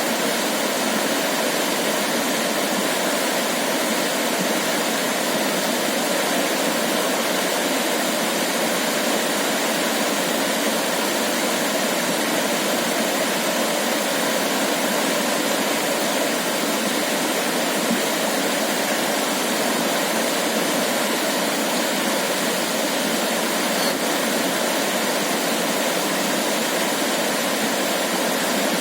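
Steady, even rushing noise of water, without swells, pauses or distinct splashes.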